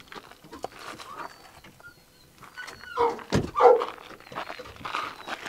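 A single dull thump about halfway through, with short yelps and whines from an excited dog around it.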